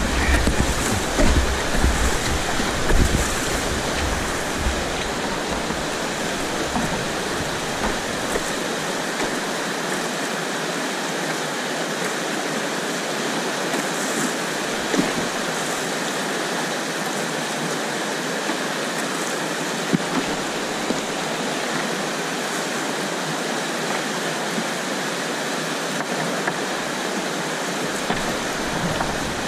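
Whitewater rapid rushing steadily around a kayak. For the first few seconds low buffeting on the microphone rides over it, then the rush carries on evenly.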